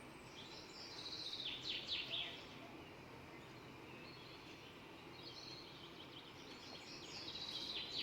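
Small birds chirping faintly: quick runs of high, downward-sweeping chirps about a second in and again near the end, over a faint steady hiss.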